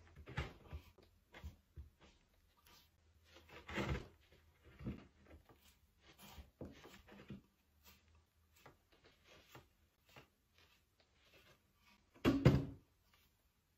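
Sea sponge dabbing and rubbing on a painted ceramic vase to lift off the still-damp paint, with soft scattered taps and scuffs as the vase is handled. A louder knock comes near the end.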